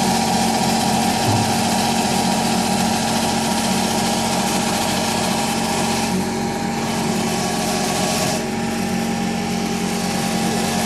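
CNC wood copy lathe running and cutting a spinning wooden blank: a steady motor hum and whine under the hiss of its cutters shaving the wood. The hiss eases for about two seconds starting about six seconds in.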